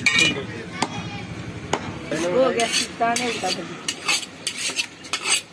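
Heavy chopping knife cutting pork on a wooden log block: irregular sharp chops, with voices talking in the background.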